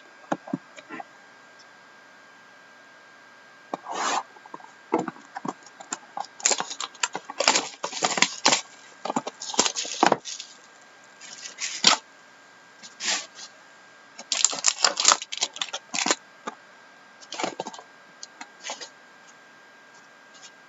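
Crinkly plastic wrap and card packaging being torn open and handled, in irregular crackling bursts with short pauses, over a faint steady high hum.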